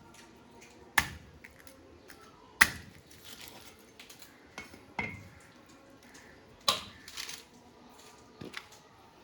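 Blade chopping through a large hilsa fish: five sharp chops, irregularly spaced a second or two apart, each with a brief metallic ring, and lighter taps in between.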